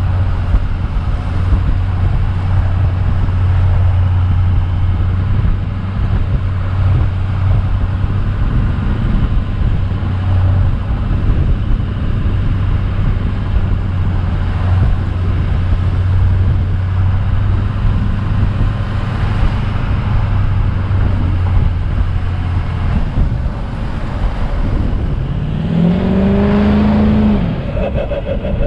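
An engine running steadily. Near the end it revs up, holds a higher pitch for a second or two, then drops back.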